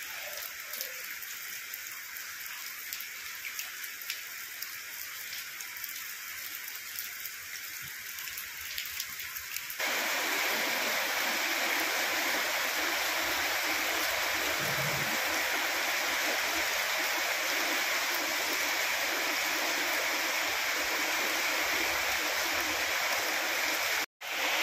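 Heavy rain falling, with the patter of individual drops. About ten seconds in, the sound jumps abruptly to a louder, steady rush of water, and it cuts out for a moment near the end.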